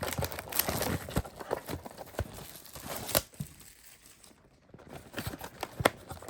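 Plastic wrapping of a box of Select basketball cards crinkling and tearing as it is unwrapped, with irregular rustling and scattered sharp clicks, the loudest a snap about three seconds in.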